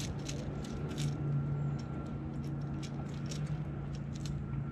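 Irregular light clicks and rattles as a bass is handled by hand at its mouth, over a steady low motor hum from the bass boat.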